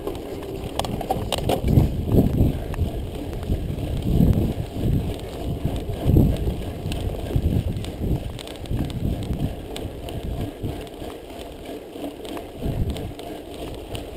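Mountain bike ridden fast over a rough dirt road: wind buffets the camera microphone in irregular gusts over the rumble of the tyres, with a few sharp rattles from the bike, most of them in the first couple of seconds.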